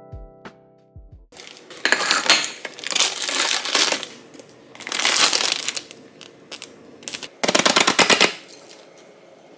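A short piano phrase cuts off about a second in, then plastic cling film and food packaging bags crinkle loudly in a few bursts as they are handled and pressed.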